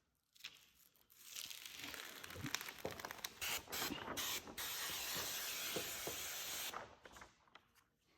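Tint sprayer misting water onto car window glass for the wet check: a run of short spritzes, then a longer steady spray that cuts off sharply near the end.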